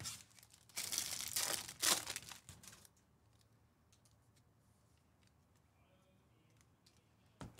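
Foil trading-card pack wrapper being torn open and crinkled, a few seconds of ripping and rustling that then gives way to a few faint ticks.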